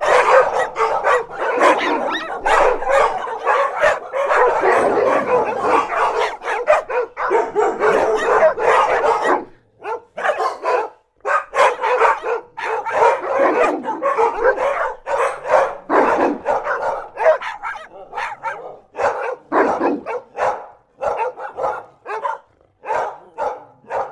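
A large pack of dogs of various breeds, large and small, barking close up: many overlapping barks and yips at once. The chorus breaks briefly about ten seconds in, then goes on in more scattered bursts with short pauses toward the end.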